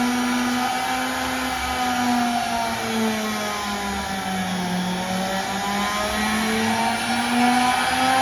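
A 2.2 kW air-cooled CNC spindle motor running under a VFD, a steady whine with a motor hum. Its pitch drops a little around the middle and rises again toward the end as the speed is changed.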